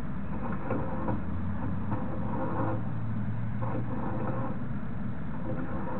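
A steady low mechanical hum over a continuous noisy background, with a few brief patches of higher tones.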